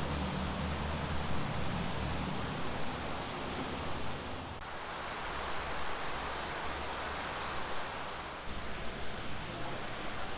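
Heavy rain pouring down, a steady hiss, with a low hum underneath.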